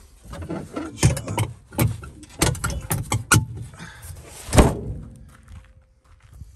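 Hinged metal floor lid over a 1959 Plymouth Suburban's spare-wheel well being handled and lowered: a run of clattering knocks and rattles, then one heavy thud about four and a half seconds in as it shuts.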